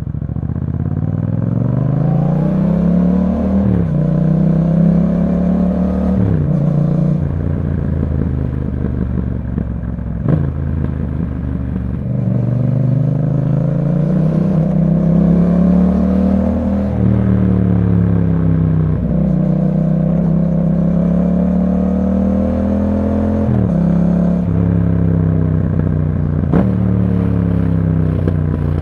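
Yamaha MT-07's 689 cc parallel-twin engine through an Akrapovic exhaust, pulling through the gears: the pitch climbs, then drops at each shift, over and over, with a few sharp clicks.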